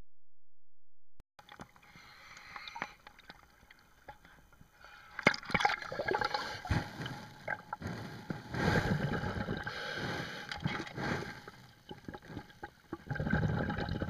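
Underwater sound picked up through a camera housing: irregular gurgling bubbles and sharp clicks and knocks, growing louder about eight seconds in. It follows a moment of dead silence at the start.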